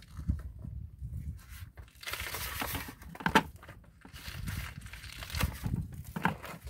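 An extension cord rustling and scraping as it is pulled off a handheld plastic cord reel, with the reel rattling and one sharp click a little over three seconds in. The cord is still hot and has melted to itself on the reel.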